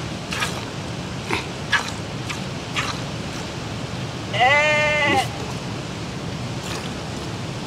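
A goat being hand-milked into a plastic bowl: several short squirts of milk, and about four and a half seconds in, one long bleat from the penned flock of sheep and goats.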